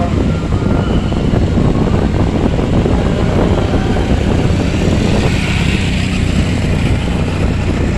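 Steady road noise from riding a motorcycle through traffic: wind rushing over the microphone, with the motorcycle engine running underneath.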